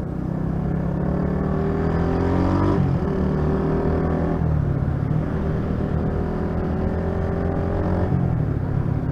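Honda CG 125 Titan's single-cylinder four-stroke engine pulling the motorcycle up through the gears: its pitch rises, drops at a gear change about three seconds in, rises again and drops at another shift a second and a half later, then holds fairly steady. It runs through an aftermarket exhaust that the rider says keeps the bike from pulling well in places.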